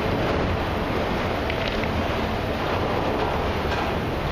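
Autorack freight cars rolling slowly past: a steady rumble of steel wheels on the rails, with a few faint brief high squeaks.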